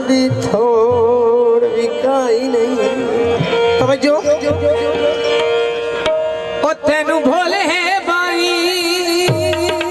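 Live stage music over a PA: a man sings long, wavering held notes into a microphone over tabla drumming.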